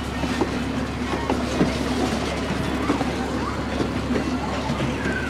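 Wooden passenger coaches of a Strasburg Rail Road train rolling past, their steel wheels clicking irregularly over the rail joints over a steady rumble.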